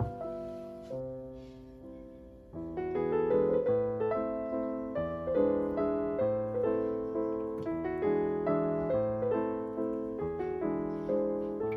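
Background piano music. It plays softly at first and grows fuller, with more notes, from about two and a half seconds in.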